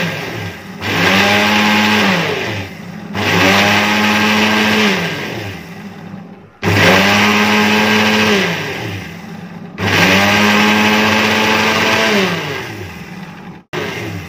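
Prestige Deluxe mixer grinder pulsed in short runs: the tail of one run, then four more of about one and a half to three seconds each, the motor rising in pitch as it spins up and falling as it winds down. It is whipping egg white and sunflower oil into mayonnaise. A sharp click comes near the end.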